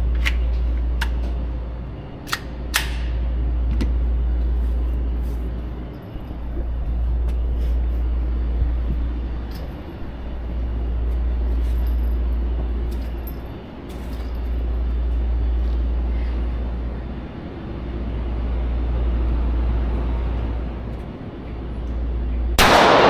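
A low rumble that swells and fades about every four seconds, with a few faint clicks, then a single loud handgun shot near the end.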